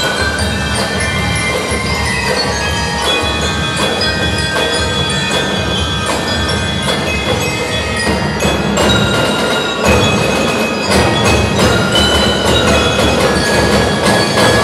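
Drum and lyre corps playing: bell lyres ring out a melody over a marching drum line of snare, tenor and bass drums, getting louder about two-thirds of the way in.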